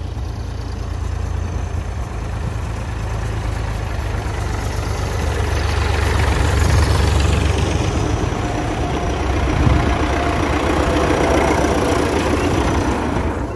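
Diesel tractor engines running as a David Brown 885 and then a Belarus 952.3 drive past close by, growing louder from about halfway through as they come alongside.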